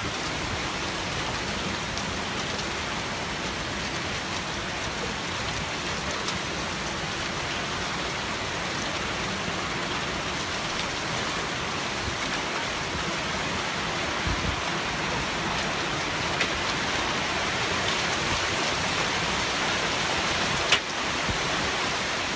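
Severe hailstorm: heavy rain and hail pelting down in a steady hiss that builds slightly, with a few sharp hits standing out, the loudest near the end.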